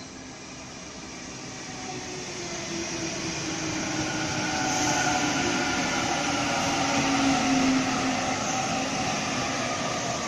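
Sydney Trains Tangara double-deck electric train approaching and running past along the platform: the steady rumble of wheels on the rails, with a motor whine whose pitch slides downward, growing louder to a peak about five to eight seconds in and then easing slightly.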